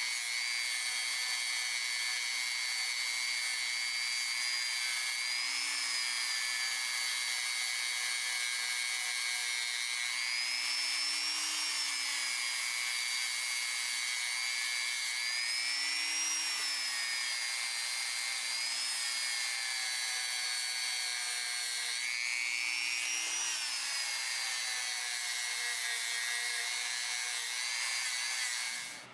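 A small high-speed power tool running steadily with a high whine, its pitch sagging and recovering a few times as the brush or wheel is pressed against the metal, then stopping abruptly near the end.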